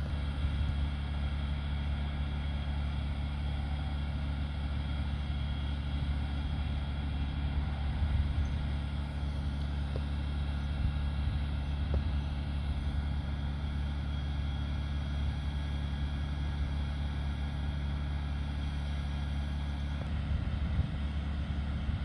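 Portable generator engine running at a steady speed, powering the vacuum used to suck the bumblebees out of their nest.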